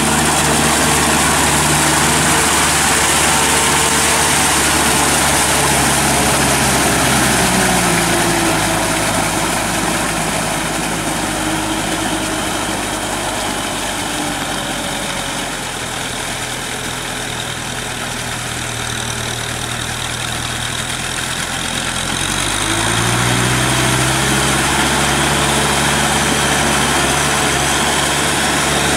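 Kubota M6040 tractor's diesel engine running steadily while the tractor works a flooded rice paddy on steel cage wheels. About a quarter of the way in the engine note drops and stays lower and slightly quieter, then rises back up near the end.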